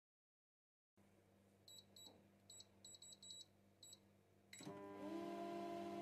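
Microwave oven control panel giving a string of short, high electronic beeps as the defrost time is set. About four and a half seconds in there is a click and the oven starts running: a steady hum whose pitch rises briefly as it gets going, then holds.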